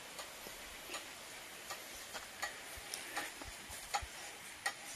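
Faint, irregular light clicks and ticks, about two or three a second, over a quiet background.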